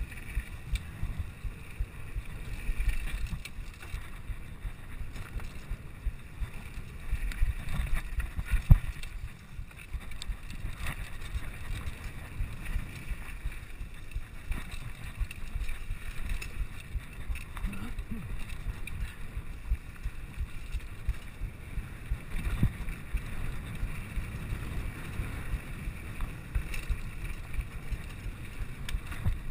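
Mountain bike descending a dirt singletrack at speed, heard from a GoPro on the rider: a steady rumble of wind on the microphone and tyres on dirt, with constant rattles and knocks from the bike over bumps. The hardest knock comes about nine seconds in.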